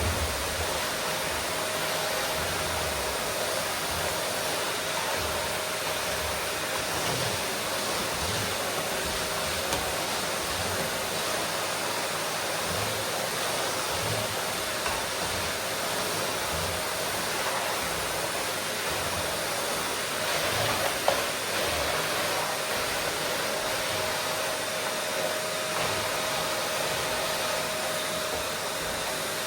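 Vacuum cleaner running steadily: an even rushing noise of the motor and airflow with a faint whine. One brief click about twenty seconds in.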